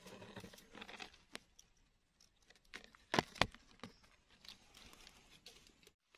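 Faint rustling of dry leaf litter and small scraping clicks as a knife trims the stem of a freshly picked red Russula mushroom, with two sharp clicks a little past three seconds in.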